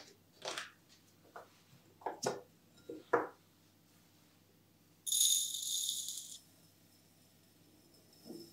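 Clicks and knocks of an instant coffee jar being opened and handled, its lid set down next to a glass canister. About five seconds in, a dense, high-pitched rattle of dry coffee granules pouring into the glass canister lasts about a second and a half.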